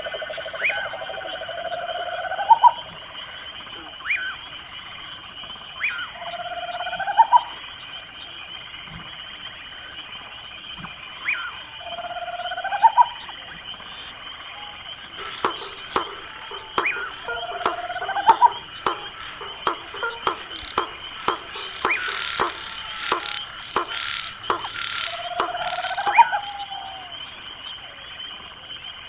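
Night chorus: a continuous high-pitched insect trill of crickets, with a short upward-sweeping call repeated about every five seconds. A run of rapid clicks joins in around the middle and stops shortly before the end.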